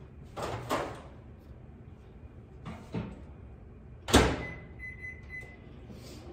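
Microwave oven door opened, then shut with a loud clunk about four seconds in, followed by a few high keypad beeps as the cooking time is set.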